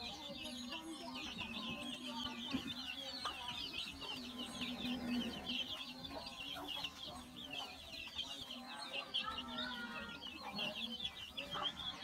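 A brood of chicks peeping nonstop in a dense chorus of high cheeps, with the mother hens' low clucking calls coming in and out beneath it as the flock feeds.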